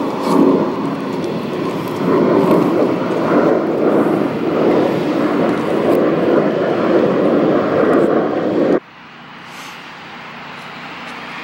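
Loud, steady vehicle roar that cuts off suddenly about nine seconds in, leaving quieter outdoor background.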